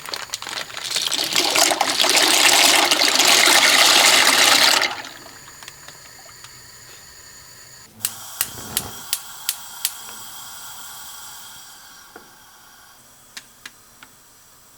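Water pouring or running loudly for about five seconds, then stopping abruptly. About eight seconds in come six sharp clicks in quick succession with a brief low thud, and three fainter clicks near the end.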